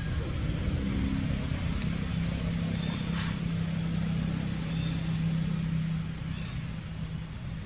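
A motor's steady low hum, strongest through the middle and easing near the end, with short high chirps repeating about once a second over it.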